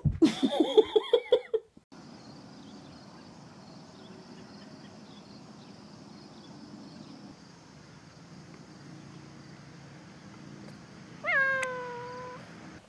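A Bengal kitten gives a quick run of rising-and-falling chirping calls, about eight in a second and a half, that stop abruptly. Near the end a kitten meows once, a single call about a second long that falls in pitch, over a faint steady background.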